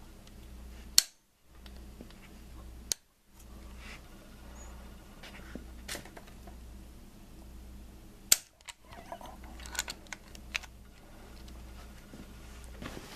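A few sharp metallic clicks and knocks from a ratchet and the timing belt tensioner of a Honda D16 SOHC engine as the tensioner bolt is loosened and the spring-loaded tensioner is let go. The loudest come about a second in and again past the middle, followed by a run of lighter ticks.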